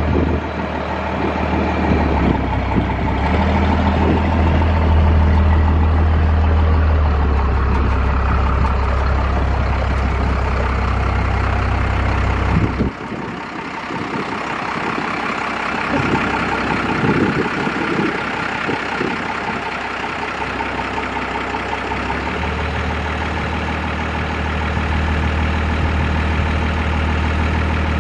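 Diesel pickup truck's engine running on the road, heard from inside the cab. Its low drone drops away suddenly about halfway through, with some knocks and rattles, then comes back near the end.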